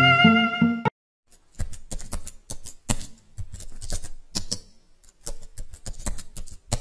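Intro music cuts off about a second in. After a short gap, a typing sound effect begins: irregular key clicks, several a second.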